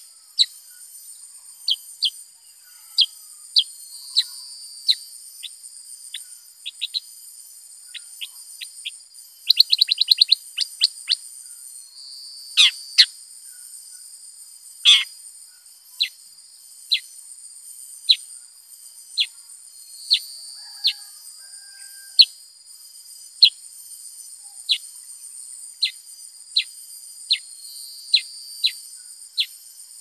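Black-headed bulbul calling: a long series of short, sharp whistled notes, each falling steeply in pitch, at roughly one a second, broken by a fast run of about ten notes some ten seconds in and a few longer, louder notes a little after. A steady high-pitched hum runs underneath.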